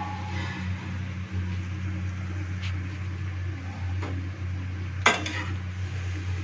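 Bhature deep-frying in hot oil in a steel kadhai, a steady sizzle over a low hum, with a light click near three seconds in and a sharp clatter of a metal slotted spoon against the steel pan about five seconds in.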